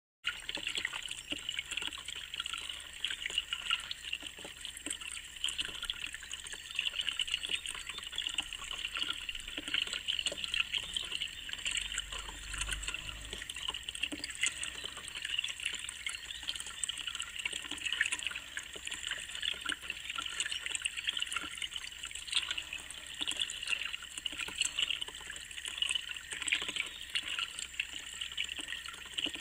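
Water trickling and splashing steadily down a small solar-pumped tiered garden fountain.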